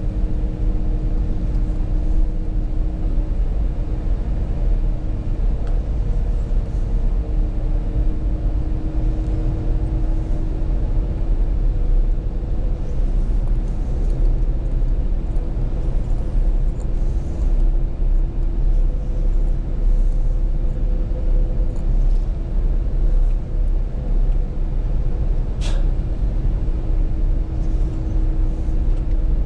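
Inside the cabin of a moving Ford: steady engine and road rumble with a low, even engine drone. A single brief, sharp sound cuts through near the end.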